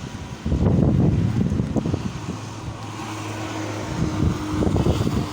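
Gusty wind buffeting the microphone in loud low rumbles, strongest about half a second in and again near the end, over a steady low engine hum.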